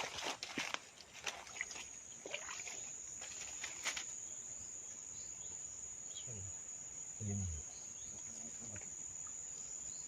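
Steady high-pitched insect trill that sets in about a second and a half in and holds on, over a scatter of clicks and rustles in the first few seconds.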